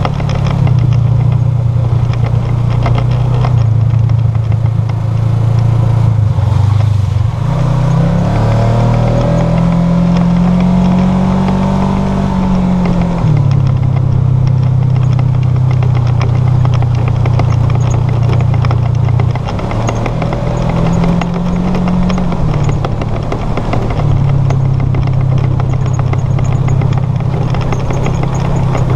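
Side-by-side UTV engine running under way. Its pitch climbs about eight seconds in, holds for a few seconds and falls back, then climbs and falls again around twenty seconds in.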